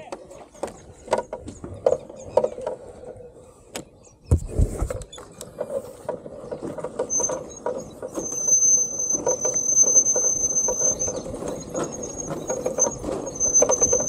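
Small motorcycle engine starting with a low thump about four seconds in, then running as the bike rolls slowly over bare rock, with scattered clicks before the start. A thin, steady high-pitched squeal sounds over the engine from about seven seconds in.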